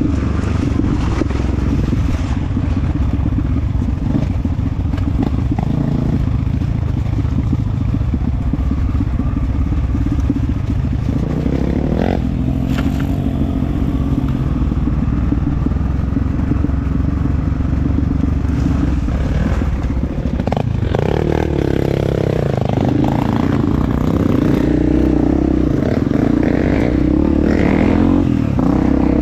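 Honda CRF250F's single-cylinder four-stroke engine running as the bike rides an off-road trail, the pitch rising and falling with throttle changes, with a couple of sharp knocks along the way.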